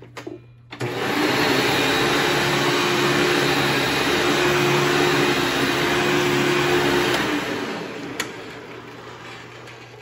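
Upright vacuum cleaner's motor switched on about a second in and running loud and steady for about six seconds, then switched off and winding down over the next two seconds.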